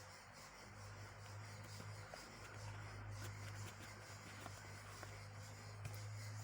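Faint scattered clicks and light taps of handling, over a steady low hum.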